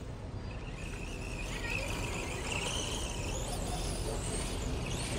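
Arrma Senton 4x4 RC truck being driven at a distance: a high whine from its electric motor and drivetrain wavers up and down in pitch as the throttle is worked. It comes in about half a second in and grows stronger toward the end.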